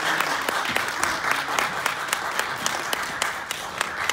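Audience applauding, many hands clapping steadily, with a few voices faintly under it.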